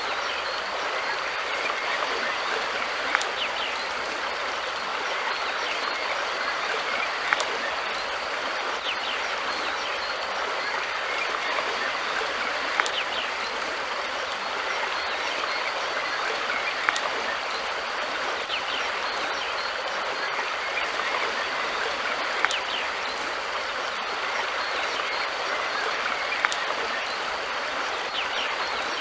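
River water flowing steadily. A short sharp click stands out every four to five seconds.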